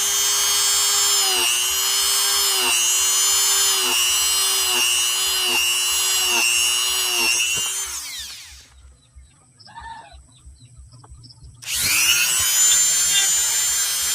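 Electric drill motor running at speed, its pitch dipping briefly about once a second as it bites under load. About eight seconds in it is switched off and winds down. After about three seconds of quiet it is switched on again and spins back up.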